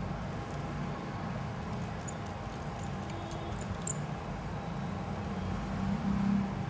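A low, steady background rumble that swells briefly near the end. About two to four seconds in come a few faint, sharp clicks as a small screwdriver works the screws of a phone's plastic mid-frame.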